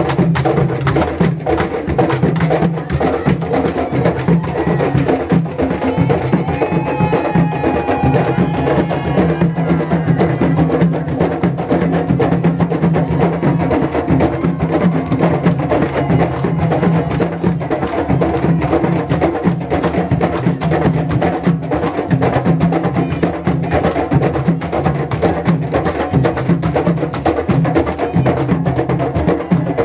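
Group of barrel hand drums played together in a steady, fast rhythm, with continuous strokes.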